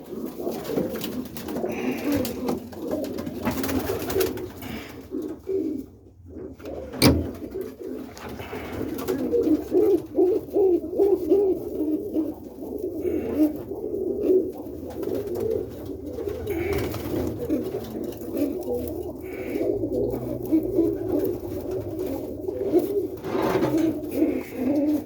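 Several roller pigeons cooing continuously and overlapping inside the loft. There is a single sharp click about seven seconds in.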